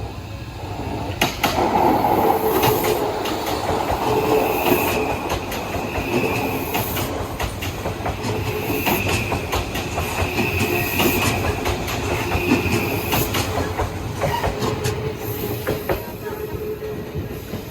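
Odakyu Line electric train passing close by, its wheels clacking over the rail joints in a long run of clicks. A high wheel squeal comes and goes as it passes. The noise builds about a second in and falls away near the end.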